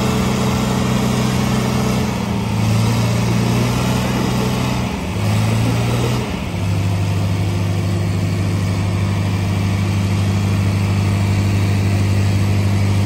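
John Deere 4020 tractor's six-cylinder engine working under load as it drags a 14,000 lb stoneboat of concrete blocks. Its steady note drops in pitch about two seconds in, dips briefly twice around the middle, then settles lower and steady.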